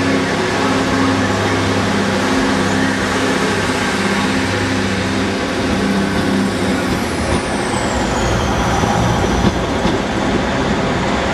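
Large diesel vehicle engine running with a steady hum, which gives way about halfway through to an even rushing noise of a vehicle going by. A thin, high whistle falls in pitch briefly near the two-thirds mark.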